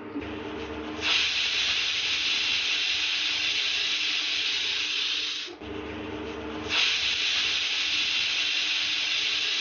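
Pressure cooker whistling: steam hissing out from the weight valve in two long blasts, each about four and a half seconds, with a short break between. The two whistles are the signal that the curry inside has cooked under pressure.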